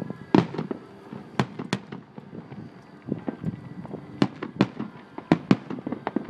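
Aerial fireworks shells bursting in an irregular string of sharp bangs, about seven loud ones among smaller pops.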